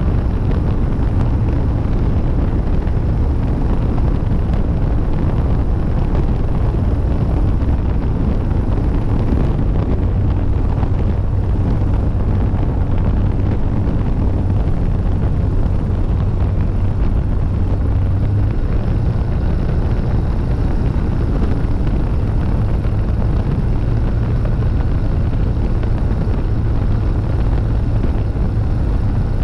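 Rotax engine and propeller of a Zenair 701 STOL ultralight running steadily in flight, with heavy wind rushing over the microphone. The engine note drops slightly about ten seconds in and rises again around eighteen seconds.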